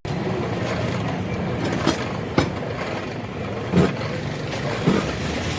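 Steady rumble of passing road traffic, with four short sharp knocks spread through it.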